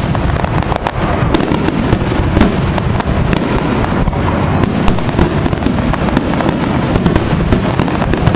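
Aerial fireworks shells going off in a dense, continuous barrage: many overlapping bangs and crackling with no pause between them.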